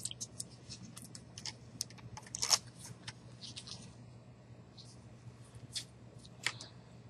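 Scattered small clicks and rustles as a cardboard board book is picked up and handled, the strongest about two and a half seconds in, over a low steady hum.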